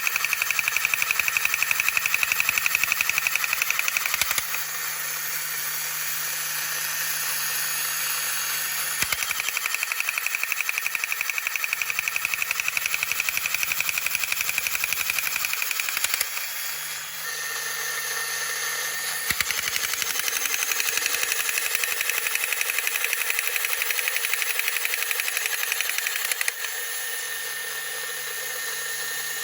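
Battery-operated tin toy running: its small electric motor and gears whir with a fast run of clicks, the sound shifting several times as the mechanism changes action.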